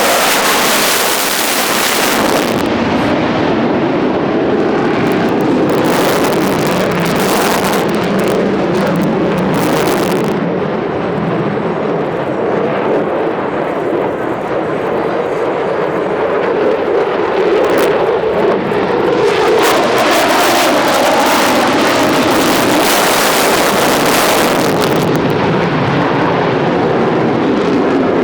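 Jet noise from a Boeing F-15SG fighter flying a display routine: a loud, continuous rushing jet noise that swells and eases several times as the aircraft manoeuvres.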